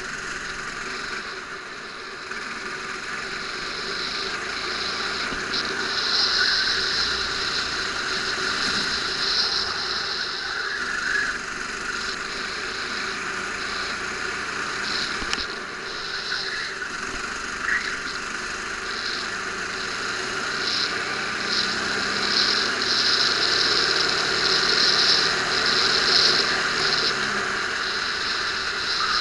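Go-kart engine running hard on track, heard from the kart itself, with a high whine over the engine note; the level swells and dips as the kart accelerates and slows through the corners.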